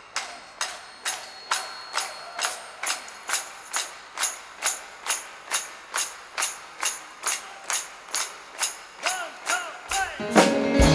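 Hands clapping together in a steady beat, about two claps a second. Near the end a band comes in with bass and keyboard chords.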